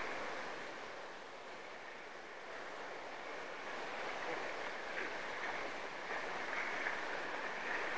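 Surf washing and breaking on a beach: a steady rushing of foaming water that eases slightly and then swells again.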